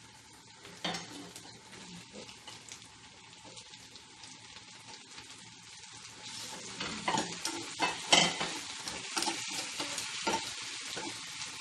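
Chicken pieces sizzling in a frying pan with sautéed onion and garlic, with metal tongs clicking against the pan as the pieces are turned. The sizzle is faint at first and grows louder about six seconds in, with sharp clicks scattered through the second half.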